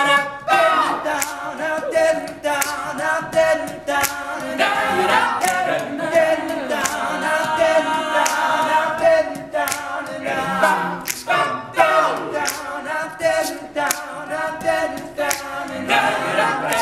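All-male a cappella group singing close harmony in several parts, with sharp percussive beats recurring at regular intervals over the voices.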